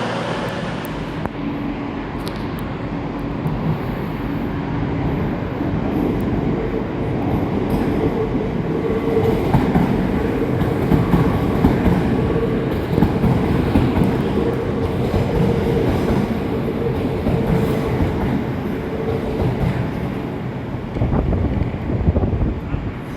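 A train moving along the track, growing louder through the middle, with a steady whine held for much of its passage.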